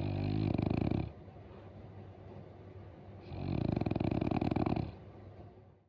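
French bulldog snoring: two loud, fluttering snores, the first about a second long and the second about a second and a half, with quieter breathing between. The sound fades out just before the end.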